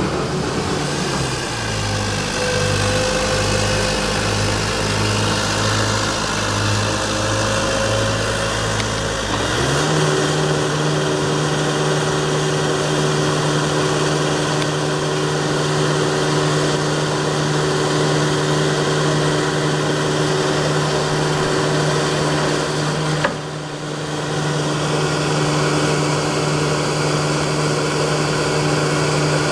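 Manitou MT1440 telehandler's diesel engine running steadily; about a third of the way in the revs step up and hold at the higher speed, with a brief dip about three quarters of the way through.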